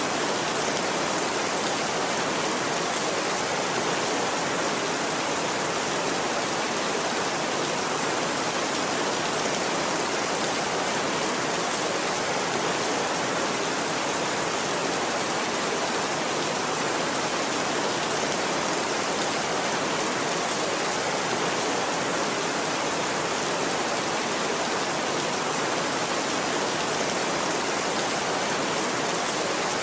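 Steady, even rain falling, with no thunder or change in intensity.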